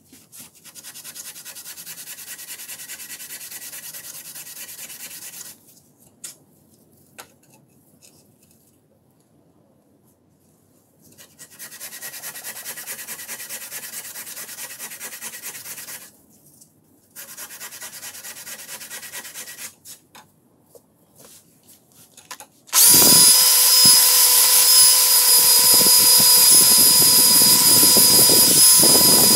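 A green abrasive scouring pad scrubbed back and forth along a rusted steel vernier caliper beam, in three bouts of rubbing. Then, for the last several seconds, a cordless drill fitted with a wire brush runs against the beam, much louder, with a steady whine, brushing off the rust.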